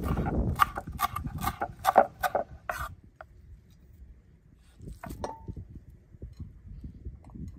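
Hands squeezing chopped bell pepper and grated onion over a glass bowl: wet squelching with a quick run of sharp clicks in the first three seconds. Later there are softer handling sounds as ground lamb is scraped into the glass bowl, with a single click that rings briefly.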